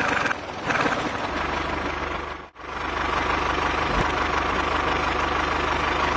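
Tractor engine sound effect: an engine idling with a steady low rhythmic knock. It drops out for a moment about two and a half seconds in, then runs on.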